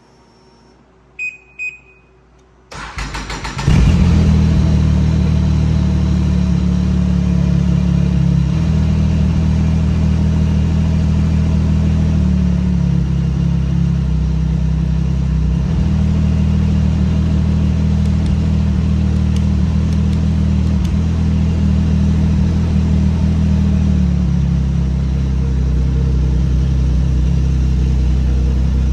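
Two short beeps, then a Ski-Doo snowmobile engine cranks, starts about four seconds in and idles steadily through its exhaust.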